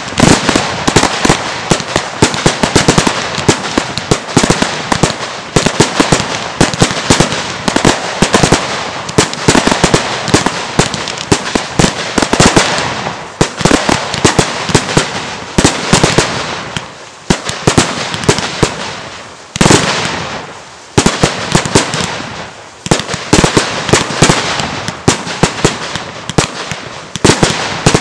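Fireworks display: a near-continuous rapid barrage of bursting aerial shells and crackling stars. In the second half, several louder single bangs stand out, each fading away over a second or so.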